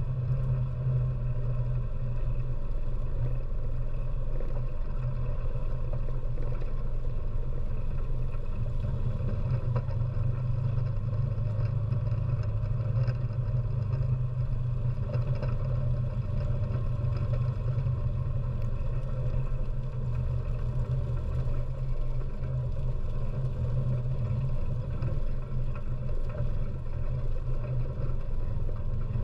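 ATV engine running at a steady, low drone as the quad drives slowly, heard from a camera bolted to its front-mount magnetic sweeper.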